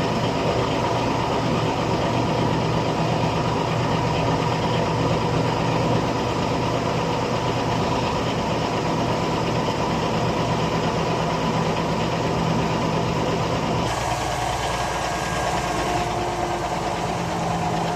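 Diesel engine of a Putzmeister concrete pump truck running steadily, driving the pump and boom. About fourteen seconds in, the sound changes abruptly and its low hum drops away.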